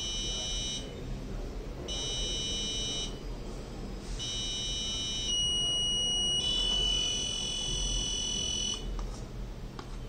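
Arduino-driven buzzer beeping high-pitched as eye blinks are registered for Morse code: two beeps about a second long, then a long tone of about four and a half seconds whose pitch changes twice along the way.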